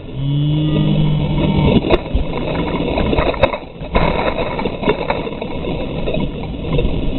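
Whitewater rushing and splashing around a kayak running a shallow pourover rapid, with water washing over the bow-mounted microphone and sharp splashes now and then. A held vocal cry lasts about a second and a half at the start.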